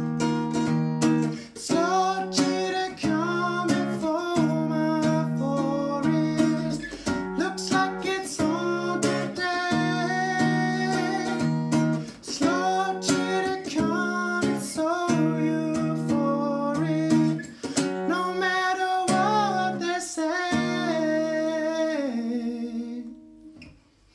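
Acoustic guitar strummed in chords while a man sings a melody over it without clear words. The playing ends about a second before the end, the last chord fading out.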